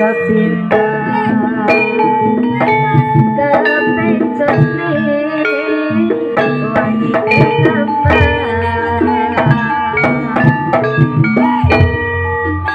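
Jaranan music: kendang hand-drum strokes over melodic instruments, played at a lively steady pulse.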